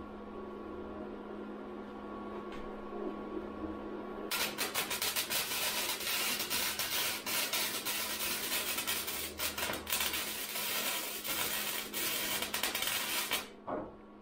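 Electric arc welding: the arc crackles and sizzles in one continuous run of about nine seconds, starting about four seconds in and cutting off sharply near the end.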